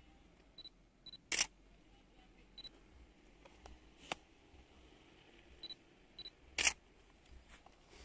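A camera taking photos: short high beeps of the focus locking, each pair followed by the shutter firing. There are two loud shutter clicks, about a second and a half in and near the end, and a fainter click about four seconds in.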